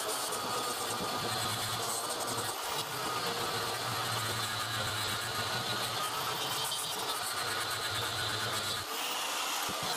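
Handheld angle grinder with an abrasive disc grinding rust off a steel axe head: a steady motor whine and a rasping grind of disc on metal, the motor's note shifting as it is pressed on and eased off, with a brief let-up near the end.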